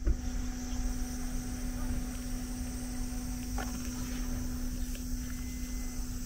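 Steady high-pitched chorus of summer insects, with a constant low hum and a low rumble beneath it, and a faint tick about three and a half seconds in.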